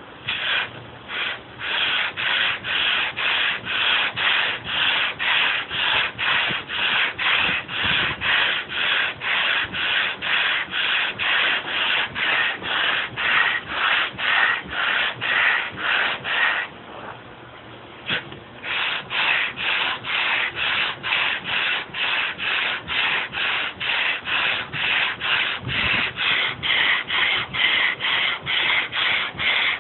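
Sandpaper on a hand-held sanding block rubbed back and forth over a wooden butcher-block table top, stripping off the old finish and stain, at about three strokes a second. The strokes stop for about two seconds just past the middle, then start again.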